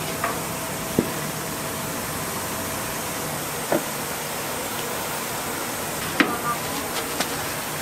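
Wooden paddle knocking and scraping against a large pan as rice-cake dough is turned, a few sharp knocks scattered through (one about a second in, another near four seconds, a cluster around six to seven seconds), over a steady rushing background noise.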